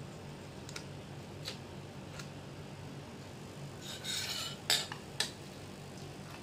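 Eating utensils clinking against a ceramic bowl while eating noodles: a few faint clicks, then a short scrape about four seconds in and two sharp clinks shortly after.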